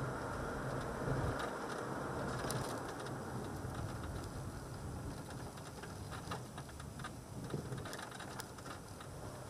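A car driving on an asphalt road, heard from inside the cabin: steady road and engine noise with a low hum and scattered light clicks. It eases a little in the second half.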